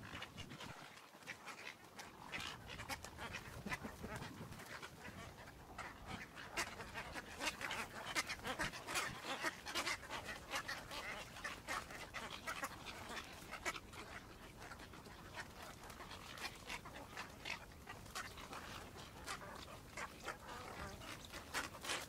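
Egret nesting colony calling: a faint, continuous stream of short, overlapping calls and clicks from many birds, busiest in the middle.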